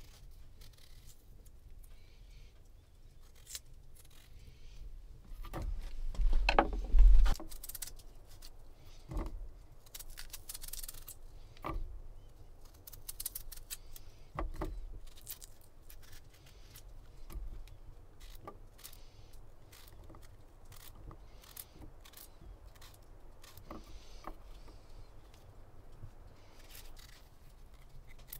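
Small knife peeling and cutting a raw potato by hand: a run of short scraping cuts and clicks, with chunks dropping into a metal camping pot. A louder knock about seven seconds in.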